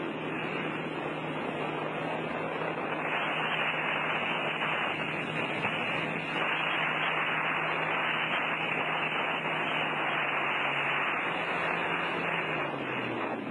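Personal watercraft (jet ski) engine running steadily at towing speed under a loud, even rush of water spray. Near the end the engine note drops as it eases off.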